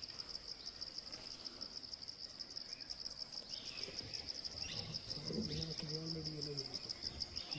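Forest insects chirring steadily, a high, rapidly pulsing drone.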